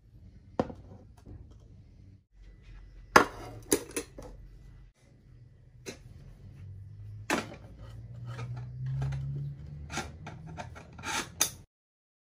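Cookware and dishes being handled: a series of sharp clinks and knocks of pots, lids, plates and utensils, loudest about three seconds in and again near the end.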